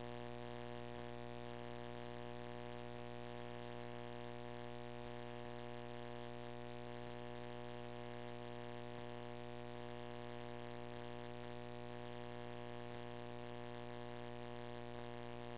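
Steady faint electrical hum with a layer of hiss, unchanging throughout: the background noise of a radio scanner's audio feed with no transmission on the channel.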